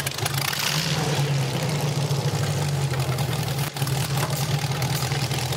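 Rover 3.5-litre aluminium V8, fitted in a 1948 Volvo T22 tractor, idling steadily.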